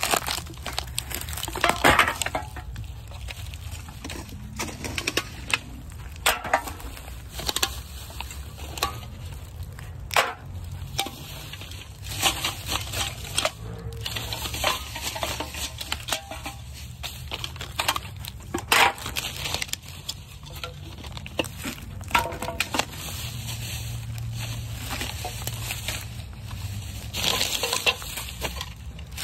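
Aluminum cans clinking and clattering as they are picked from litter and dropped into a cardboard box of cans, with plastic litter and dry leaves crinkling and crunching underfoot, in irregular bursts.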